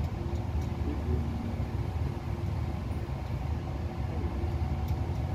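An engine running steadily at idle: a constant low rumble with a faint steady hum above it.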